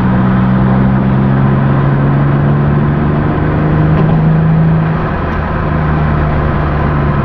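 BMW E36 M3 straight-six with a newly installed aftermarket exhaust, heard from inside the cabin while cruising at highway speed, a steady engine note over tyre and road noise. The note climbs a little as the car accelerates, then eases off about five seconds in.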